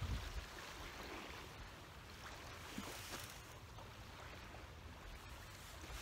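Gusty wind, with a low rumble on the microphone near the start, over small choppy waves lapping at the river bank.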